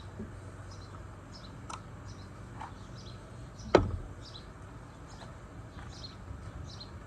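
Hand tools and car parts handled during an oil change: a couple of light clicks, then one sharp knock partway through. Small birds chirp faintly and repeatedly in the background.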